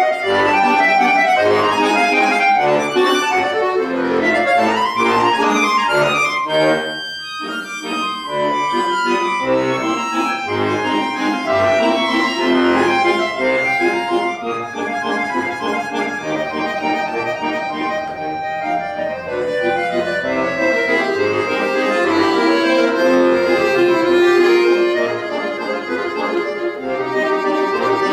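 Chromatic button accordion playing solo: sustained chords under a moving melody, with a brief softer moment about seven seconds in.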